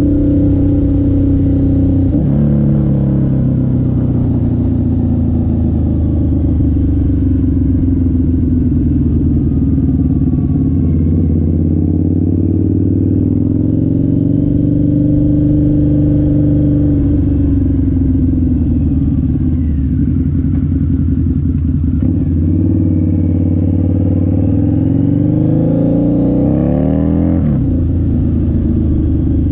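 A 2003 Harley-Davidson V-Rod's liquid-cooled 60° V-twin running through an aftermarket CFR exhaust under way, its pitch rising and falling with the throttle. Near the end the revs climb steadily, then the pitch drops sharply.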